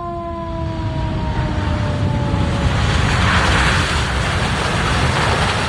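The airport tower's siren winding down, its falling tone fading out over the first two and a half seconds, as a Super Air Jet jet airliner comes in to land. The jet's engine roar builds and is loudest about three to five seconds in.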